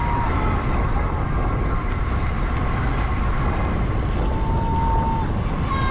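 Wind rushing over the camera microphone and tyre noise from a road bike ridden at about 24 mph, a steady low rumble. About four seconds in, a thin steady whistle sounds for about a second.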